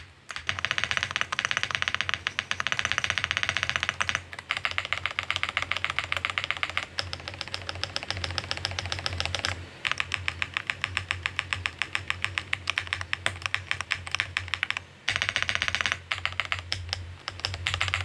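Fast typing on a Chilkey ND75 aluminium mechanical keyboard fitted with Gateron EF Dopamine Blue linear switches. The keystrokes come in quick runs of many clicks a second, broken by short pauses about 4, 10 and 15 seconds in.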